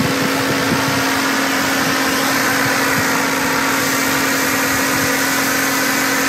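Pressure washer running steadily: a constant motor-and-pump hum under the hiss of the high-pressure water jet hitting the wall.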